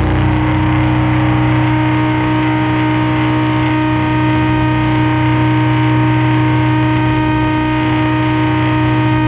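Sludge/doom metal: a heavily distorted electric guitar chord held and left ringing as a steady drone through effects, with no drums or new notes struck.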